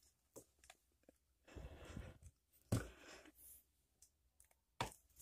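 Faint plastic clicks and rubbing from handling an action camera in a clear plastic waterproof housing, with a longer scuffing stretch about a second and a half in and another about three seconds in.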